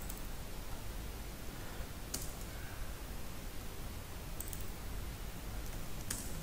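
Occasional computer mouse clicks, a handful of isolated sharp clicks spaced a second or two apart, over a steady recording hiss and low hum.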